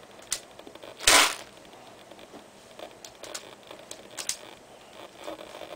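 Small sharp plastic clicks and rattles from handling a 1911-style airsoft pistol while loading BBs into it, with one louder short rattling burst about a second in.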